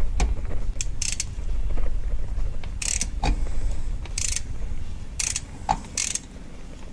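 Hand ratchet driving a cap-type oil filter wrench, clicking in about eight short, irregular rasps as the oil filter is turned loose.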